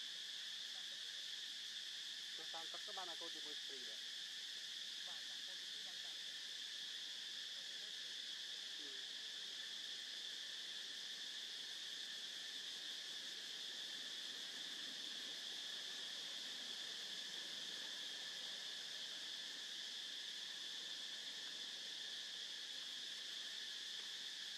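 Steady, high-pitched drone of a forest insect chorus. About three seconds in, a brief falling call sounds once over it.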